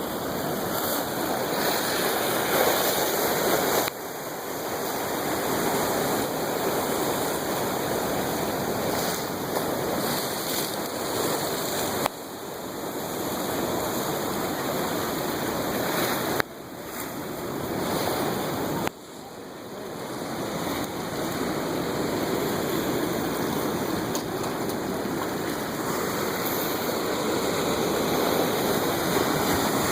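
Atlantic surf washing and breaking, a steady rush of water noise that drops sharply four times and builds back up each time.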